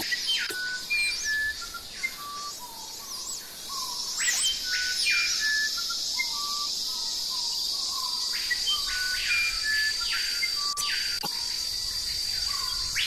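Forest birds singing repeated phrases of clear whistled notes that sweep up and down, coming in bouts every few seconds. Under them runs a steady high-pitched insect drone.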